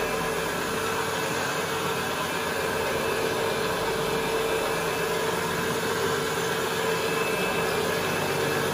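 Counter-rotating brush (CRB) carpet machine running while it is pushed across the carpet, its two brushes spinning in opposite directions to agitate pre-spray into the pile. It makes a steady whir with a constant mid-pitched hum.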